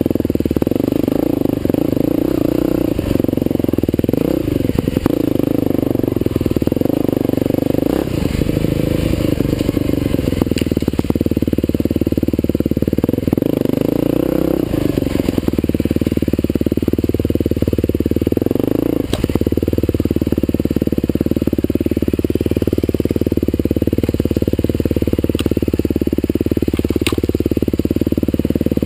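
Husqvarna TE511 enduro dirt bike's single-cylinder four-stroke engine running under load, the revs rising and falling repeatedly with the throttle. A few sharp knocks stand out in the last third.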